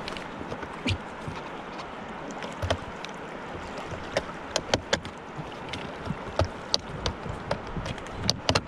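Shallow river water running and lapping over pebbles around a whitewater kayak, with scattered sharp clicks and knocks throughout.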